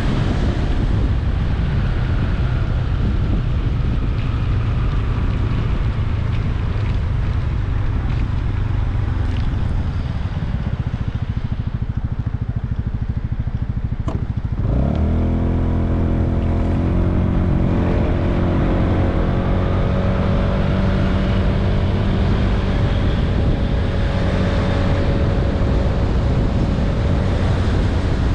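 Honda Vision 110cc scooter's single-cylinder engine running on the move, with heavy wind noise on the microphone. The engine sound drops away for a few seconds, then its revs climb sharply about halfway through and hold steady.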